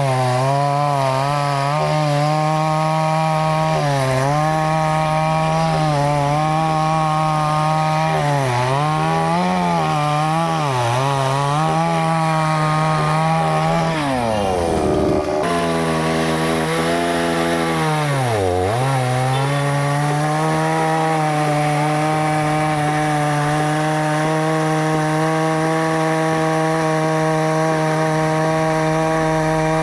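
Two-stroke chainsaw running at high revs and cutting wood, its engine note sagging again and again under the load of the cut. About halfway through the revs fall off sharply and climb back, and they dip once more a few seconds later.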